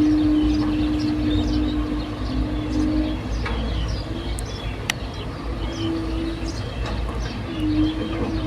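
Heavy machinery engine running with a low rumble and a steady hum that fades for a few seconds midway and then returns. Birds chirp throughout, and a sharp click comes about five seconds in.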